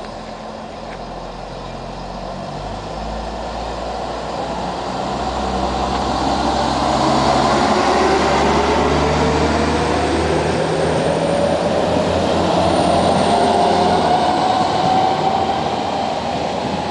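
NordWestBahn Talent diesel multiple unit pulling away from the platform, its diesel engines working under load. A whine rises steadily in pitch as it accelerates, and the sound grows loudest as the train passes.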